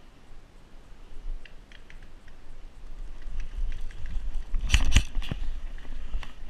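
Footsteps and gear rattle of a player moving across grass, with low rumble from the body-worn camera, and a few sharp knocks close together about five seconds in.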